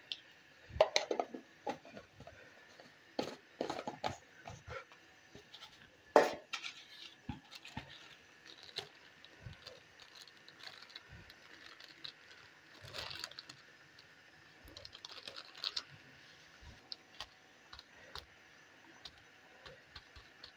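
Scattered light clicks, taps and rustles of kitchen handling: a steel spoon and a spice packet being worked over a simmering karahi. The loudest is a single knock about six seconds in.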